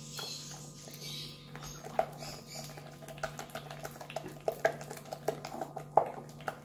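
A hand squishing and stirring thin flour batter in a glass bowl, a run of wet, irregular squelches with a few sharp clicks against the glass.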